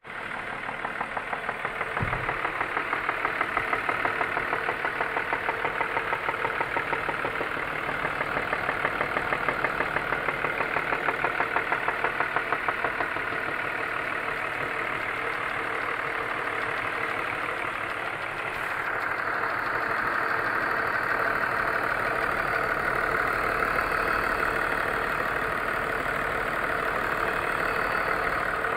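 BMW M54 inline-six idling with a rhythmic knock, which the owner traces to around the third cylinder. The sound changes character about two-thirds of the way in.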